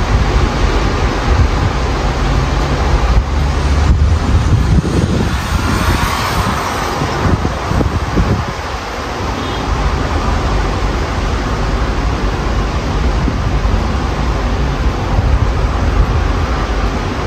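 Strong, gusty wind of a dust storm buffeting the microphone: a continuous rushing noise with a heavy low rumble that swells and eases, dipping briefly about eight seconds in.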